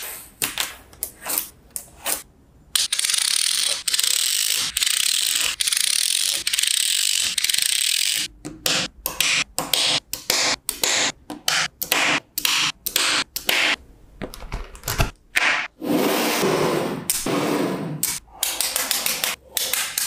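Small magnetic balls clicking and snapping together as they are handled and pressed into rows. Near the start there is a long stretch of continuous rattling and scraping, then quick runs of sharp clicks.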